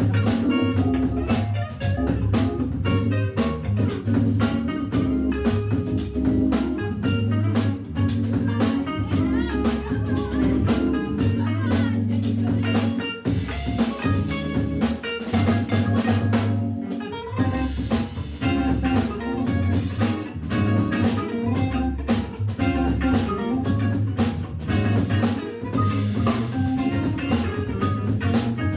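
Live jazz organ trio playing: Hammond organ, electric guitar and drum kit, with the guitar carrying the melodic line over held organ chords and a steady drum beat.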